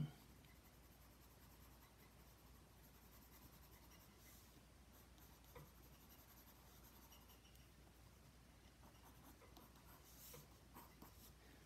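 Faint scratching of a pencil shading on gray drawing paper, a little louder in short strokes about four and ten seconds in.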